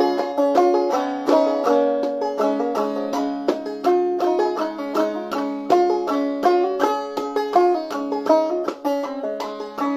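Five-string banjo played clawhammer style in double D tuning: a quick, even stream of plucked notes over a low drone note that keeps ringing underneath.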